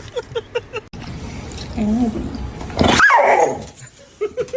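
A dog vocalising across quick clip cuts: a fast run of short yips in the first second, then a brief wavering whine and one loud, high yelp about three seconds in that drops in pitch.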